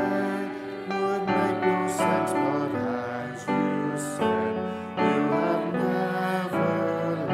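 Congregational hymn singing with piano accompaniment, slow and gentle, the notes changing every second or so.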